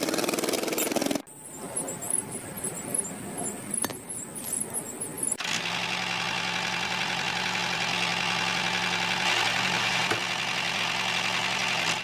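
Small motor of a miniature DIY toy tractor running with a steady buzz that cuts off abruptly about a second in. Quieter, uneven sound follows for a few seconds, then a steady motor hum with a low tone comes back about five seconds in.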